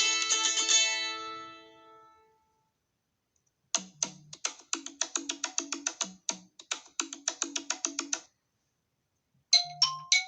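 iPhone ringtones played back one after another. A ringing tone fades out over the first two seconds. After a short gap comes about four and a half seconds of quick, short, woody-sounding struck notes in phrases, and another ringtone of struck, ringing notes begins near the end.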